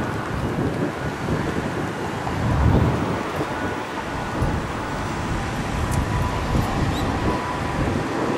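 City street traffic at a busy intersection, with wind buffeting the microphone in low rumbling gusts, the strongest about two and a half seconds in.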